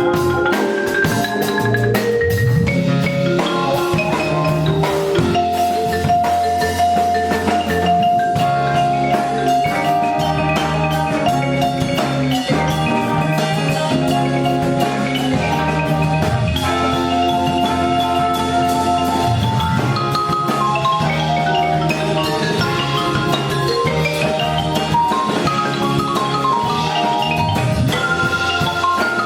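Live band music with drums, a bass line and a bright melody of struck-sounding notes, played at a sound check.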